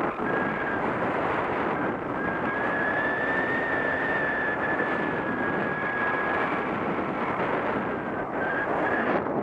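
Steady rush of airflow buffeting the action camera's microphone in paraglider flight, with a thin high whistle holding through the middle.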